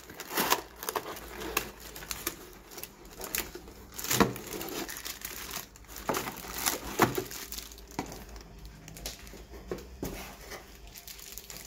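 Clear plastic wrapping around light bulbs crinkling and rustling as it is handled, with cardboard packaging being moved: irregular crackles, plus a few louder knocks about four and seven seconds in.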